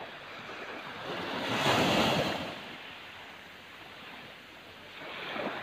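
Small sea waves washing onto a sandy beach: a steady hiss of surf with one wave swelling up and breaking about two seconds in, and a smaller one near the end.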